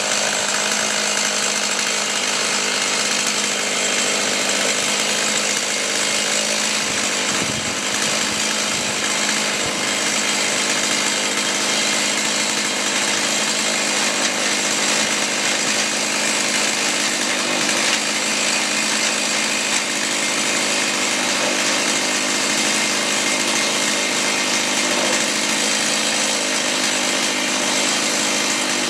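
Chainsaw on a homemade chainsaw mill running steadily at high revs, ripping a plank lengthwise from an oak log.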